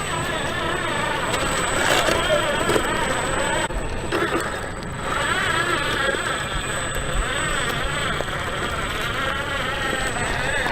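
Electric motor and gear drivetrain of a 1/10 scale RC4WD Desert Runner RC truck whining as it is driven, the pitch rising and falling with the throttle. The whine drops back for about a second, around four seconds in.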